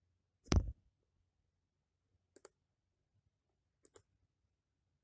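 A dull thump about half a second in, then two computer mouse clicks about a second and a half apart, each a pair of quick ticks.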